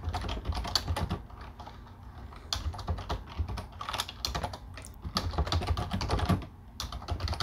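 Computer keyboard typing: runs of quick keystrokes with short pauses between them, one about a second in and another near the end.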